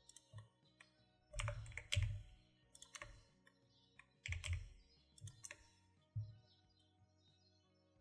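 Computer keyboard keys tapped in scattered, irregular strokes, some close together and some a second or more apart: shortcut keys being pressed while working in Blender.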